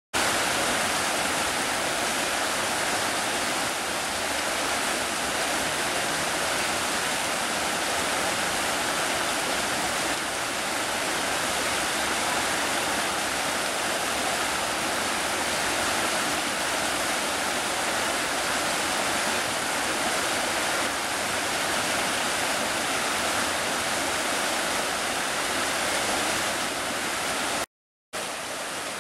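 Fast-moving floodwater rushing across a road, a steady, even noise of flowing water. Near the end it cuts out for a moment and comes back a little quieter.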